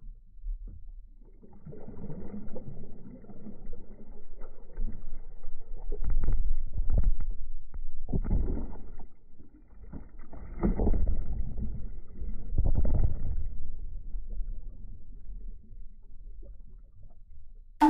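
Muffled underwater churning and sloshing of a butterfly-stroke swimmer, heard through a phone held underwater, swelling in surges roughly every two seconds and dying down near the end.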